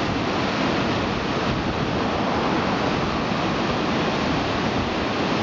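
Whitewater rapids rushing: a loud, steady, even wash of churning river water.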